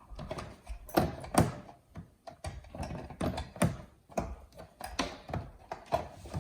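Glass refrigerator door panel being fitted onto the door: irregular knocks, taps and light thunks as it is set into the door's grooves, the loudest two about a second in.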